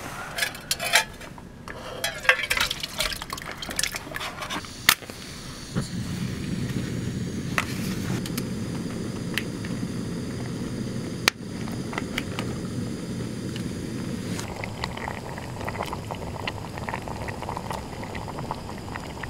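Pot of doenjang stew heating over a camp flame. For the first few seconds the pot and utensils clink and knock; from about six seconds in there is a steady low rushing of the flame and the simmering stew.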